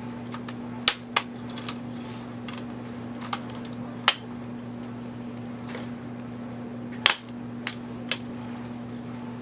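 Plastic screen bezel of an Acer Aspire 5742 laptop being pried off, its clips snapping loose in sharp clicks: a handful spread over several seconds, the loudest about seven seconds in. A steady low hum runs underneath.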